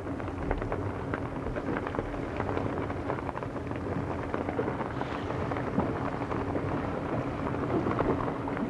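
Wind buffeting the microphone on a moving boat over choppy water, with a dense, crackly rush of water and a faint steady motor drone underneath.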